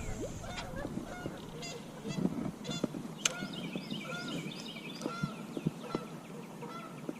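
Geese honking repeatedly, a series of short calls one after another.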